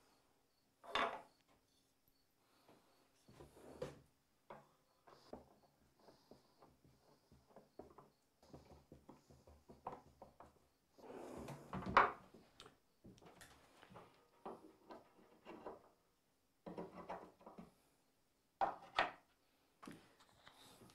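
Wooden drawers of a Harbor Freight Yukon workbench sliding in and out and bumping as they are fitted, with scattered wood-on-wood knocks and scrapes and a few louder knocks.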